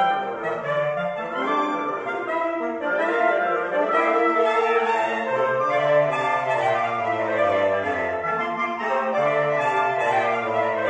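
Reed quintet playing together live: oboe, clarinet, saxophone, bass clarinet and bassoon in a busy ensemble passage, with a moving bass line under several upper voices.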